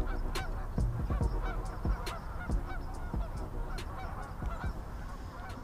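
A flock of geese honking, many calls overlapping, fading out toward the end.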